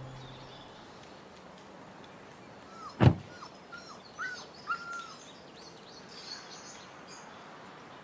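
Faint outdoor background with birds chirping in a short run of quick falling calls, just after a single sharp thump about three seconds in. Background music fades out at the very start.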